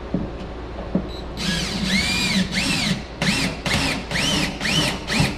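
Power drill/driver driving a screw in short trigger pulses, its motor whine rising and falling in pitch with each of about seven bursts, the first the longest. Two light knocks come before the drilling starts.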